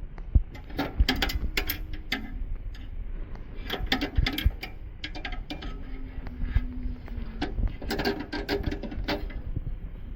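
Irregular clicking, tapping and rattling of metal parts being worked, in clusters, with a low hum that comes and goes twice.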